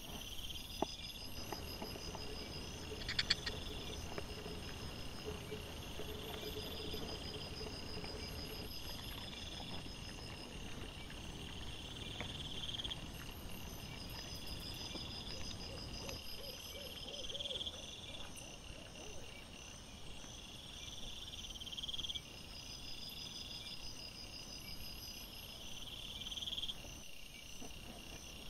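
Night insects chirping in repeated high trills, one train after another, with a couple of sharp clicks about one and three seconds in.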